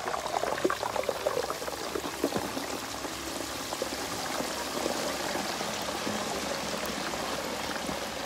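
Frozen french fries in a wire fryer basket sizzling in a pot of hot oil: crackling hard at first, then settling into a steady bubbling sizzle.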